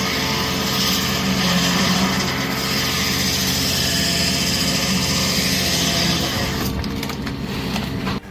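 A wood-cutting machine runs steadily, its motor going as it cuts through wood. The sound shifts about a second before the end and then cuts off suddenly.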